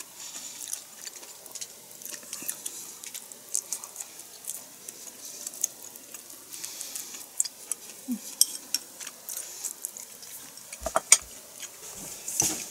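Chopsticks clicking against a ceramic rice bowl while eating: scattered small clicks throughout, with a few louder knocks near the end.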